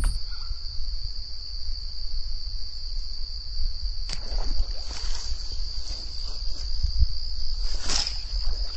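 Insects chirring in a steady high-pitched drone, over a low rumble of wind on the microphone. A few short clicks or rustles come about four, five and eight seconds in, the last one the loudest.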